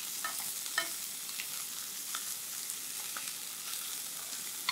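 Pork-wrapped rice balls sizzling as they sear in the pork's own rendered fat in a nonstick frying pan, with a few light clicks of metal tongs as the balls are turned over.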